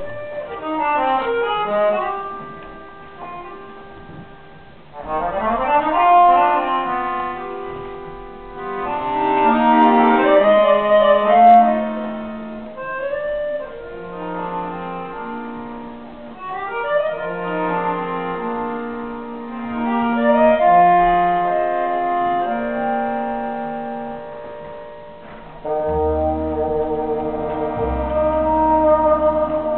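Live chamber music from an accordion, double bass and woodwind trio: the accordion's held chords and melodic lines over wind-instrument notes, with low double-bass notes coming in near the end.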